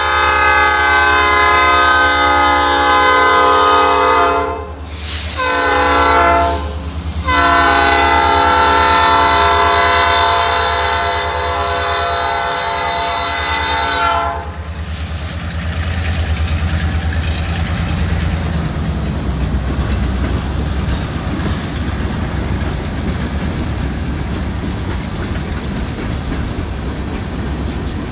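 Multi-chime air horn of an SD40-2 diesel locomotive sounding close by: a long blast, a short one, then a long blast that cuts off about 14 seconds in, the close of a grade-crossing signal. After that the locomotives and a string of hopper cars roll past with a steady low rumble and wheels clicking over the rail joints.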